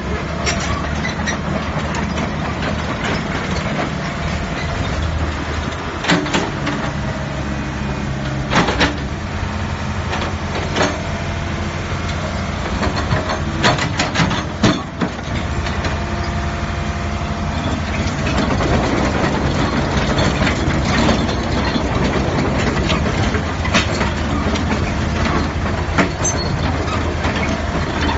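Cat E120B hydraulic excavator's diesel engine running steadily, with a few scattered clanks and knocks. About two-thirds of the way through it grows a little louder and rougher.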